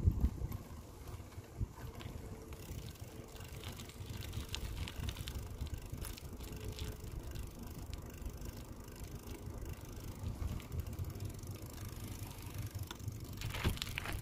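Bicycle being ridden on asphalt: steady low rumble of tyres and wind on the microphone, with scattered light clicks and rattles and a low thump right at the start.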